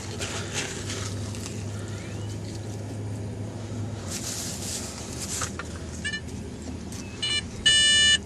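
Teknetics Omega metal detector giving loud, repeated multi-pitched target beeps near the end, as the coil is swept over the hole: the deep target is still down there. Before that there is only a steady low hum and a brief rush of noise.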